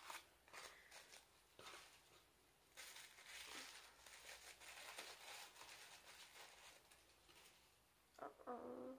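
Tissue paper crinkling and rustling faintly as a small wrapped gift is unwrapped by hand. Near the end there is a short hum from a woman's voice.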